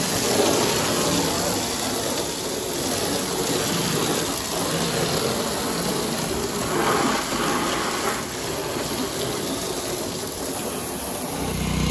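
A jet of water from a garden hose spraying against a truck's radiator fins, a steady rushing spatter.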